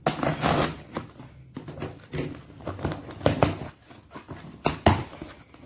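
A delivery package being torn open by hand: irregular rustling and ripping of the packaging, with a couple of sharp cracks about three and five seconds in.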